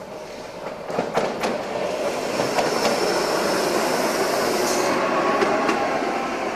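Red-and-cream electric railcar passing close by on the rails, its rolling noise growing over the first second. A few sharp wheel clicks come about a second in, and a high steady whine runs through the middle of the pass.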